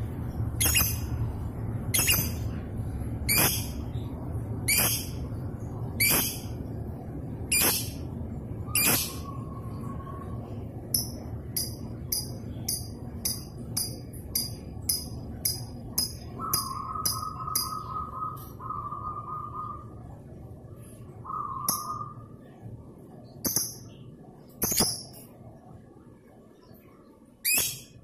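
Fischer's lovebird calling: sharp, high shrieks about every second and a half, then a fast run of short chirps about three a second, broken by a few short buzzy trills, with single calls near the end. A steady low hum lies underneath and fades out in the last few seconds.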